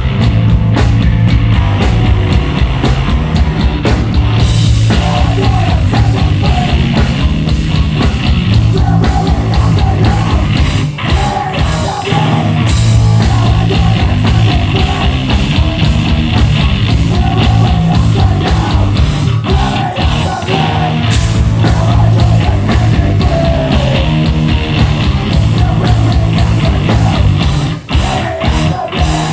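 Hardcore punk band playing live and loud: distorted electric guitars, bass and fast drums, with a brief break near the end.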